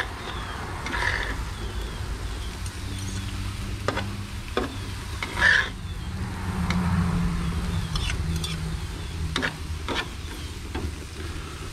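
Ground chicken and chopped smoked ham frying on a grill, stirred with a utensil that knocks and scrapes against the cooking surface now and then, over a steady low hum.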